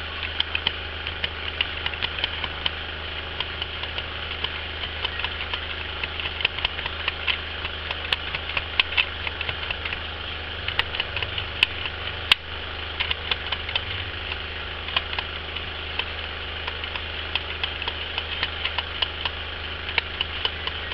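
Heat gun running steadily, its fan and motor blowing hot air to soften a sheet of EVA foam for moulding, with many small scattered clicks over the even hum.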